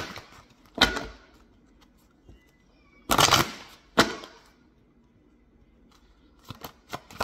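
A deck of oracle cards shuffled by hand: sharp snaps of the cards, a longer riffling rush about three seconds in, and a run of light clicks near the end.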